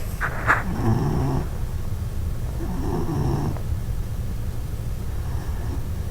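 Four-month-old puppy snoring in its sleep: two snoring breaths about two seconds apart, over a steady low rumble.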